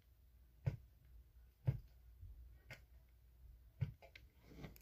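Metal agar punch being pushed into an agar plate in a plastic petri dish, cutting plugs: four faint clicks about a second apart.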